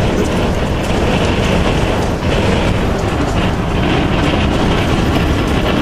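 Severe storm wind, probably around 50 to 70 mph, blowing in a loud, steady rush through an open front door and buffeting the microphone.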